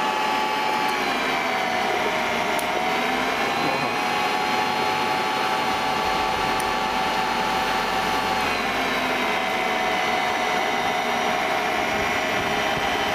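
Electric motor driving a generator, running steadily with a high whine. Its pitch sags slightly about a second in, settles, then sags again a little past the middle as the speed drops.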